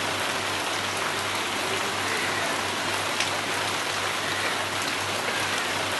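Heavy rain falling steadily, a dense even hiss with scattered drop ticks and a low steady hum beneath.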